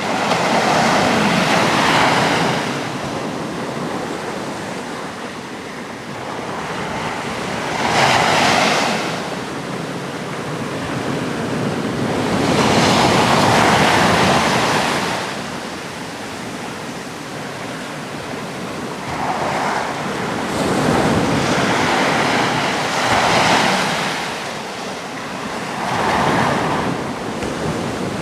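Sea waves breaking on the shore: a loud surge of surf every few seconds, with a steady wash of sea noise between them.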